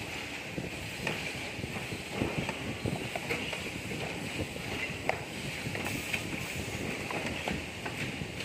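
A steady hiss with scattered light taps and rubbing as hands handle and turn a handmade leather and board eyewear case.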